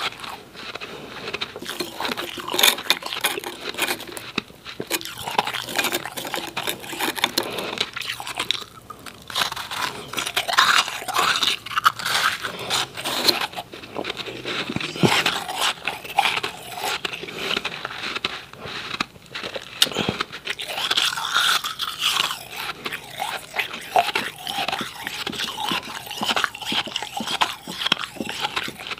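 Close-miked crunching of powdery refrozen ice cubes being bitten and chewed, a dense, near-continuous run of sharp crackling crunches.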